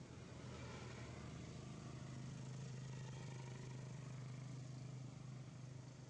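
Faint, steady low hum of a distant motor engine over a soft background hiss, swelling a little midway.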